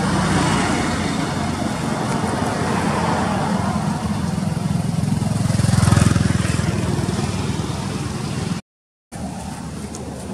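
Continuous rumble of a motor vehicle, swelling to its loudest about six seconds in as it passes and then easing, cut off by a brief moment of silence near the end.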